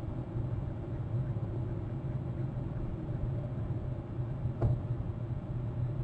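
Steady low outdoor rumble, with a single sharp click about four and a half seconds in.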